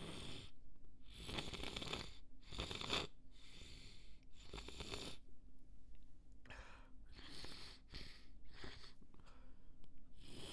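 A person breathing noisily and in short bursts, about nine breaths with brief pauses between them, the way someone breathes as a sneeze builds up.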